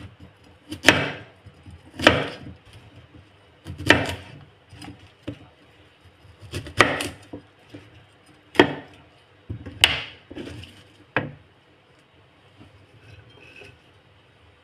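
Kitchen knife chopping broccoli on a plastic cutting board: about seven separate strokes, each a sharp knock of the blade on the board, a second or two apart, stopping a few seconds before the end.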